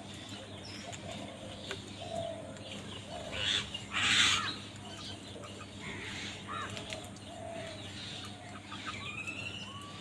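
A flock of house crows feeding on scattered grain, with two loud harsh bursts in quick succession about four seconds in, amid scattered chirps and short calls of other birds.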